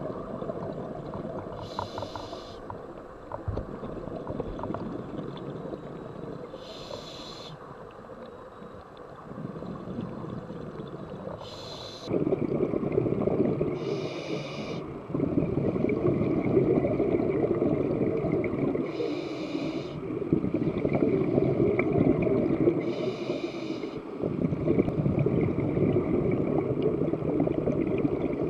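Scuba diver breathing through a regulator underwater: a short hiss of inhalation every four or five seconds, with the bubbling rumble of exhaled air between.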